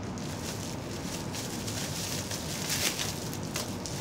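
Plastic bubble wrap crinkling and rustling as it is pulled off a ceramic mug, a run of small crackles that is busiest about three seconds in.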